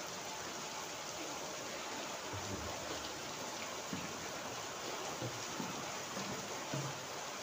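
Steady rush of water falling from a pool's water-play structure, with splashing from someone coming off the slide into the pool from about two and a half seconds in.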